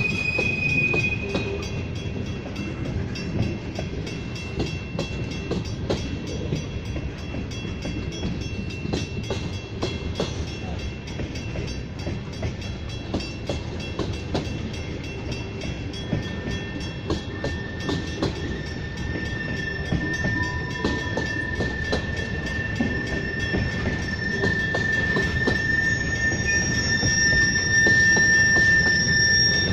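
Freight train of tank cars rolling past: a steady low rolling noise with wheels clicking over the rail joints. A thin, high wheel squeal sounds briefly at the start and again steadily from about halfway through almost to the end.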